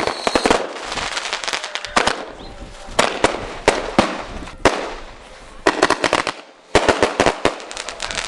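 Aerial fireworks bursting: a run of sharp bangs, with dense crackling volleys about two seconds in and again near the end.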